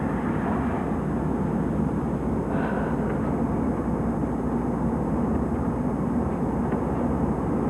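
Car driving along, heard from inside the cabin: steady engine and road noise mixed with wind through the open window.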